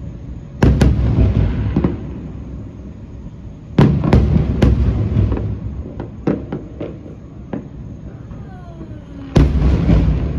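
Fireworks display exploding. Heavy booming bursts come about half a second in, around four seconds in and just before the end, each fading away, with smaller sharp pops between and a short falling tone shortly before the last burst.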